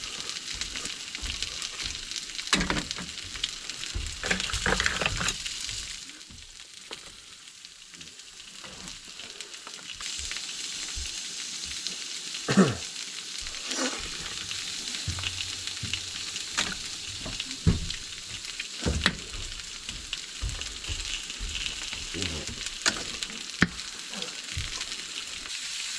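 Food sizzling on a barbecue: a steady hiss with scattered clicks and knocks from cooking utensils. The sizzle drops back for a few seconds around six seconds in, then returns.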